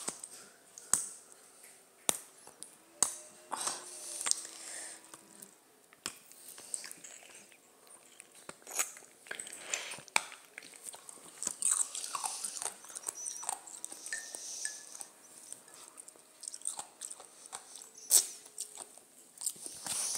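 Ice being bitten and chewed close to the microphone: irregular sharp cracks as pieces snap between the teeth, with grinding crunches in between.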